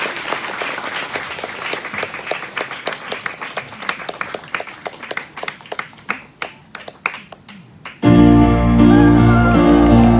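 Audience applause, claps thinning out and fading over about eight seconds. About eight seconds in, a keyboard comes in suddenly and loudly with sustained chords over a deep bass note.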